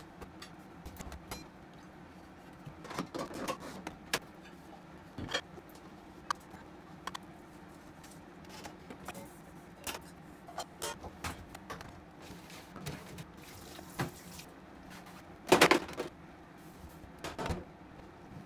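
Dishes and stainless steel bowls, a pot and its glass lid clinking and knocking as they are moved about a stainless steel sink and drainer: scattered clinks throughout, with the loudest clatter about three-quarters of the way through.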